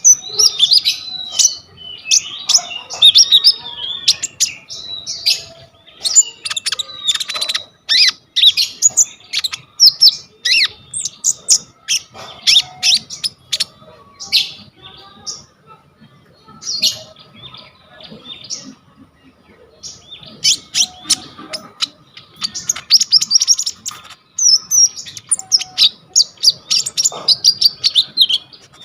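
A konin songbird singing in quick, varied bursts of high chirps and short trills, with imitated calls of other birds mixed into its song. The song thins out for a few seconds past the middle, then picks up again.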